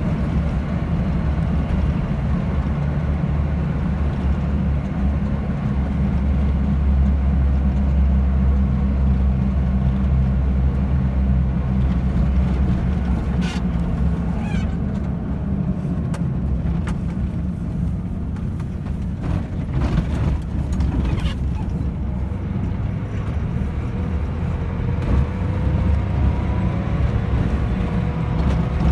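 Car driving along a road: a steady low rumble of engine and tyres, with a few sharp knocks around the middle and a rising engine note near the end.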